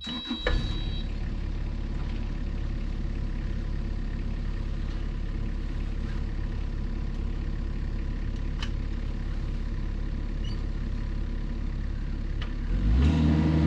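Kubota mini excavator's diesel engine idling steadily, then throttled up near the end, running louder and higher.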